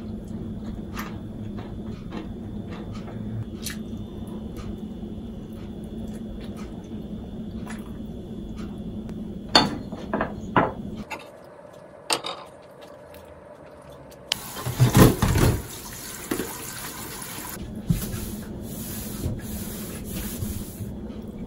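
Kitchen tap running into a sink for about six seconds, with clattering dishes just before it starts and as it begins.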